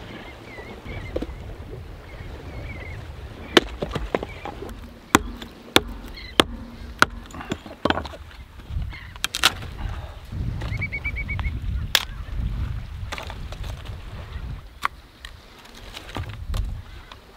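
A series of sharp knocks at irregular intervals, starting a few seconds in, over a low rumble. Short chirping birdcalls come near the start and again about two-thirds of the way through.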